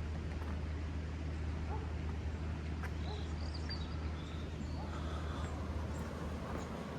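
Footsteps walking along a path over a steady low rumble of wind and microphone handling, with a few faint bird chirps about halfway through.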